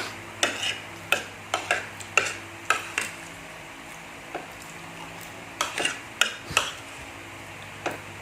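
Spoon clinking and scraping against a bowl in short irregular strokes while eating, with a pause of a couple of seconds in the middle.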